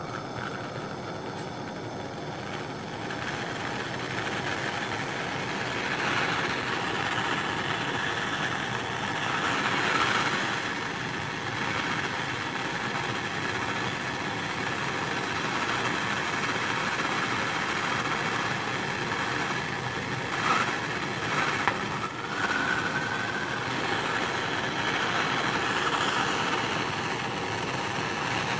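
Glassworking torch flame running with a steady hiss, lit just before and held while the glass evacuation stem is heated onto the tube envelope. A couple of short knocks come about twenty seconds in.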